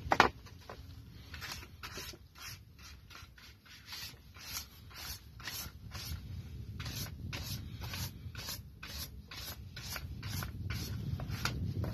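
Paintbrush strokes on paper: quick, repeated swishes, about three a second, as liquid cyanotype sensitiser is brushed on. A sharp knock comes just after the start, as the brush is dipped in the plastic tub.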